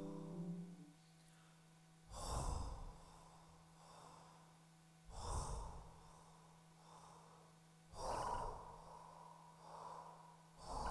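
Music fades out in the first second. Then comes slow, heavy human breathing: a loud breath about every three seconds, each followed by a softer one, over a low steady hum.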